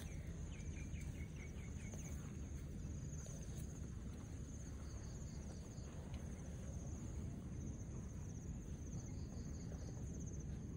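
Insects trilling steadily in a high, finely pulsing drone, with a bird giving a quick run of short falling chirps in the first couple of seconds, over a steady low rumble.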